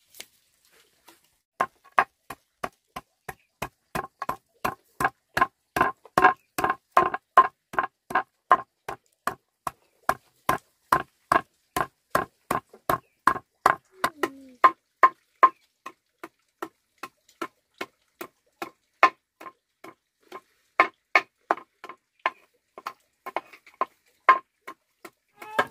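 Steady chopping: a blade striking down on wood about three times a second, starting about a second and a half in.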